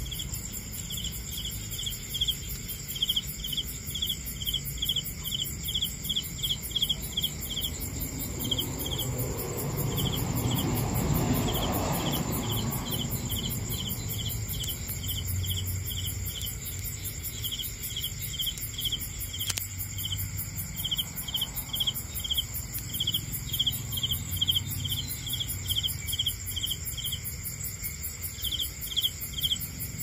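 Crickets chirping, a steady run of short chirps at about three a second, over a continuous high insect trill. A low rumble swells and fades around the middle.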